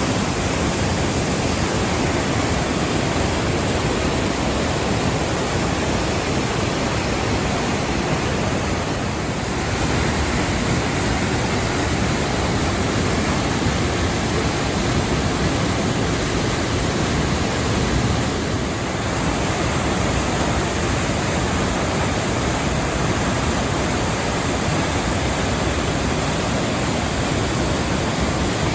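Waterfall rushing: a loud, steady wash of falling water with no break.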